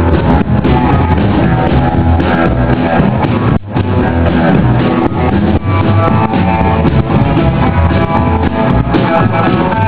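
Rockabilly band playing an instrumental break: electric guitar carrying the tune over a drum kit, with no singing. The band stops very briefly about three and a half seconds in.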